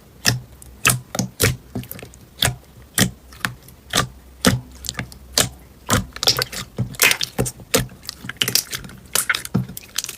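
Slime being pressed and worked by hand, giving sharp pops and clicks about two a second, coming thicker about six seconds in.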